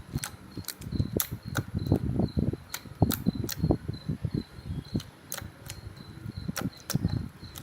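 Jiggy slime being squeezed and poked by hand: wet squelches with sharp clicking pops, a few every second.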